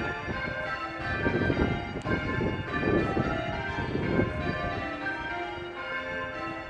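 A ring of church bells being rung in change ringing, the bells struck one after another in quick succession with their tones overlapping and hanging on. A low rumble sits under the first four seconds or so, then eases off.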